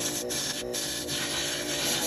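Plucked-guitar background music over a steady rasping hiss of meranti wood being sanded.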